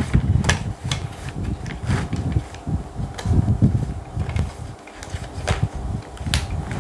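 Handling noise: a shifting low rumble with a few sharp clicks and knocks as the plastic switch-box enclosure halves and the boards inside are moved and set down on the bench.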